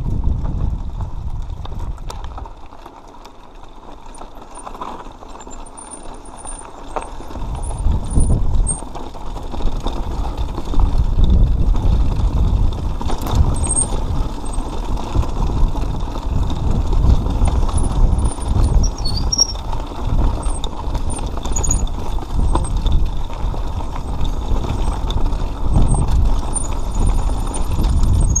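Mountain bike ridden over a rocky dirt trail: tyres crunching on gravel and stones with clatter from the bike, under a low rumble of wind on the microphone. Quieter for the first few seconds, then louder from about eight seconds in.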